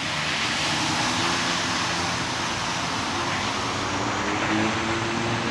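Twin-engine turboprop airliner running its engines at high power as it moves away down the runway, a steady propeller drone under a broad engine rush.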